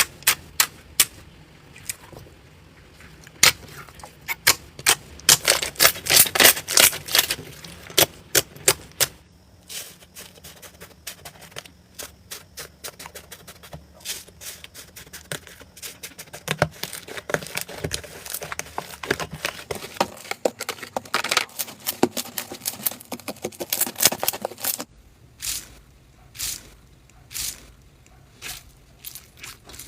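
Slime being squeezed, poked and pressed in the hands, giving runs of sharp clicks and pops from trapped air, with softer crackling stretches in between.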